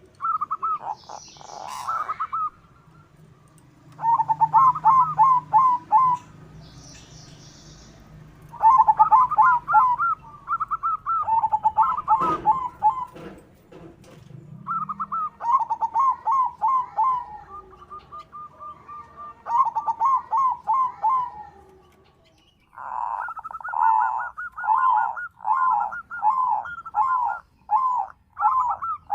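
White zebra dove (perkutut) cooing in repeated bouts of quick rolling notes with short pauses between them. The longest bout, near the end, is an even run of about two notes a second.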